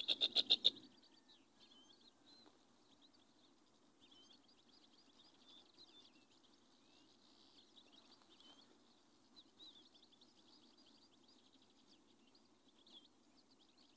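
European goldfinches twittering faintly, a scatter of thin high chirps over a low steady background. In the first second comes a quick loud run of about seven notes.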